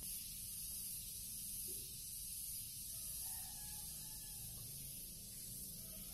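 Steady high-pitched background hiss with a faint low hum beneath it; the kittens' play on the tiles makes no clear sound of its own.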